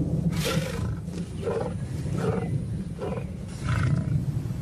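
Lion roaring: a series of about five deep, grunting calls, roughly one every 0.7 seconds.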